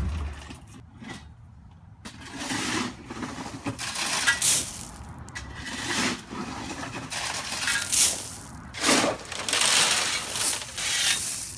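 Loose gravel crunching and scraping in a series of irregular strokes, some short and some lasting about a second, as it is spread out. A low engine hum dies away in the first moment.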